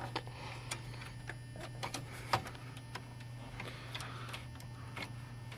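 Scattered clicks and light rattles of a PC case's toolless plastic PCI bracket clips being worked by hand, with one sharper click a little past two seconds in; the clips are not snapping shut easily. A steady low hum runs underneath.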